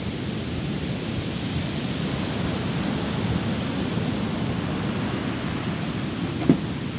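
Ocean surf washing up on the beach, with wind rumbling on the microphone. There is one short knock near the end.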